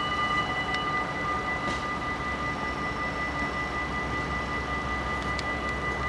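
Dutch level-crossing warning bells ringing steadily while the half-barriers come down, a continuous ringing with two strong high tones.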